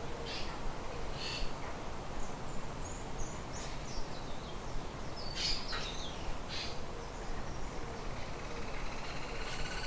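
Birds chirping and calling in short, scattered high notes, with a quick run of descending chirps a couple of seconds in, over a steady background hiss. Near the end a longer call with several tones begins.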